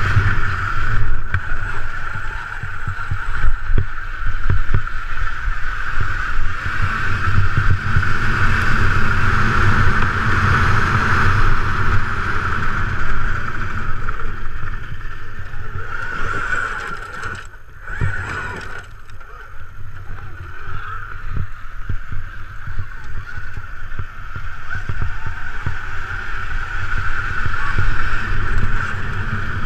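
Ride noise from a helmet-mounted camera on an electric dirt bike crossing rough ground: wind rumbling on the microphone and knocks from bumps in the track, over a steady high whine. The sound dips briefly a little past halfway, then comes back.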